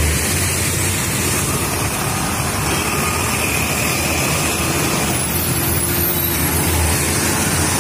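Steady traffic noise of trucks, with engines running under a dense rushing sound that holds evenly throughout.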